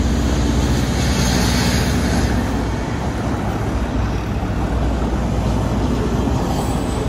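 Diesel passenger train running along the tracks below, a steady low rumble and engine hum heard from a height, with road traffic mixed in.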